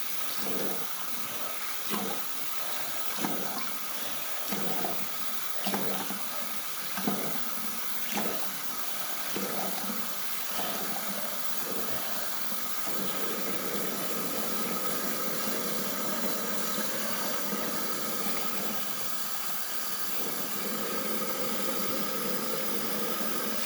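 Tap water running into a sink while hair is wetted under it. There are irregular splashes about once a second in the first half, then a steadier, even flow.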